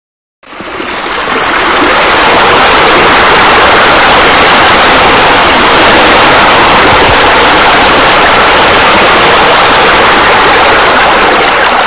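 Loud, steady rush of pouring water, like a waterfall or spillway, fading in over the first two seconds and then holding even.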